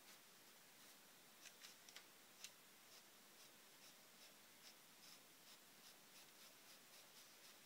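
HP Envy 100 inkjet printer starting a print job, heard very faintly. A few soft clicks come about two seconds in, then a regular run of faint ticks, about two or three a second.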